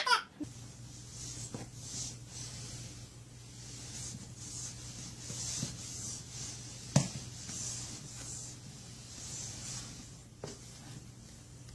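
Soft, repeated rubbing or rustling over a steady low hum, with a few light knocks, the sharpest about seven seconds in.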